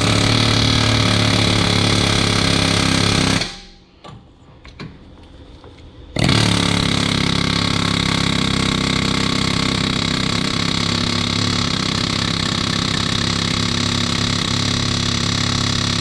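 Pneumatic air hammer (Snap-on) hammering on a rust-seized Subaru rear wheel hub to break it loose, in two long bursts: about three and a half seconds, a pause of about three seconds, then about ten seconds more.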